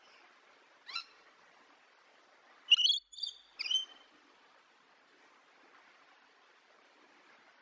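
Rainbow lorikeet calling: one brief call about a second in, then three louder, high-pitched calls in quick succession around three to four seconds in, over a faint steady hiss.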